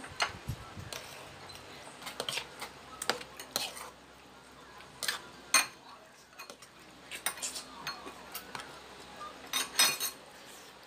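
Spoons and forks clinking and scraping against plates and bowls as people eat, in irregular sharp clicks, with louder clinks about five and a half seconds in and near the end.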